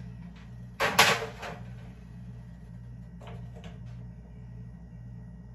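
Kitchen clatter of dishes and a foil pan being handled and set down on an electric stove top: a sharp knock about a second in, then a few lighter clicks a little past three seconds, over a steady low hum.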